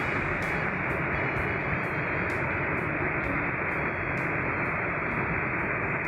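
Steady rushing water of a small waterfall pouring into a pool.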